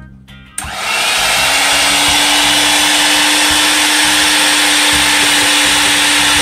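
Electric hand mixer switched on about half a second in and then running steadily at low speed, its wire beaters whipping egg whites in a stainless steel bowl, with a steady motor whine. This is the first, low-speed stage of whipping the whites before the mixer goes to high speed.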